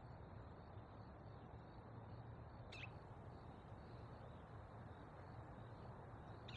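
Faint outdoor ambience: a low steady hum, with two brief high bird chirps that sweep downward, one about three seconds in and one near the end.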